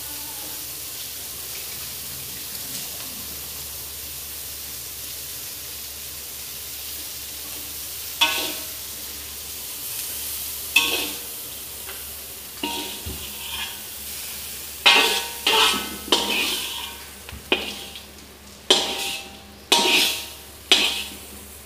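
Fried salted fish sizzling steadily in an aluminium wok, then from about eight seconds in a metal spatula scraping and clanking against the wok as the food is scooped out, about ten ringing knocks, most of them close together near the end.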